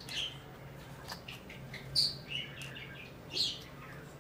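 Several short, high chirps like a small bird's, spread a second or so apart, over a faint low steady hum.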